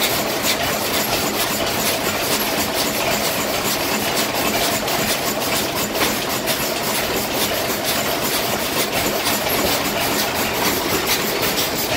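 Several antique flywheel stationary gas engines running together: a steady mechanical clatter made of many rapid clicks.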